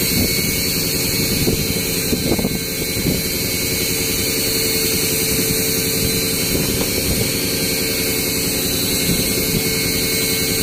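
A fishing boat's engine running steadily: an even, continuous drone with a constant hum.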